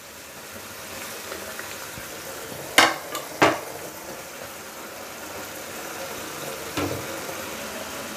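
Yogurt gravy with fried brinjals sizzling in oil in a non-stick pan while a spatula stirs it. There are two sharp knocks about three seconds in and a lighter one near seven seconds.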